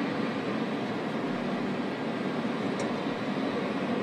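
Steady, even rushing noise of aircraft engines or ground-support equipment running on a jet flight line.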